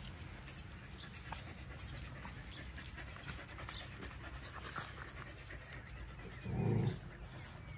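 Dog panting, with one short, louder sound from low to mid pitch about six and a half seconds in.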